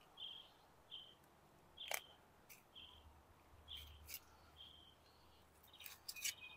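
Faint small-bird chirping: short, high chirps repeated about once a second, with a few sharp clicks in between.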